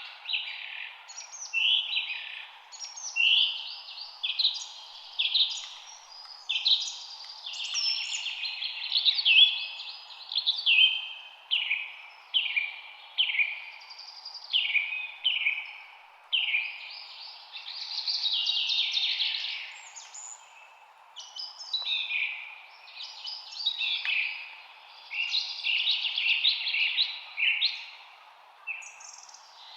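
Several birds singing, with short chirps and trills following one another quickly and overlapping, over a steady low background hiss.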